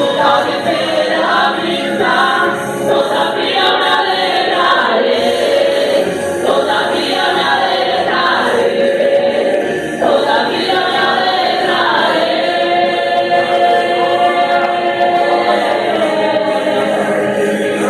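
A church praise group singing a worship song together, several voices in chorus.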